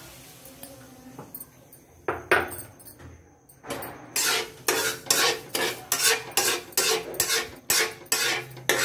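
Metal spoon stirring sugar and water in a steel kadhai, scraping against the pan. A couple of sharp knocks come about two seconds in, then quick regular strokes at about three a second from about four seconds in.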